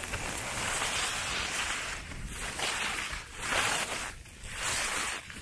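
Skis carving on packed snow, the edges scraping in a hiss that swells and fades with each turn, roughly once a second, over wind on the microphone.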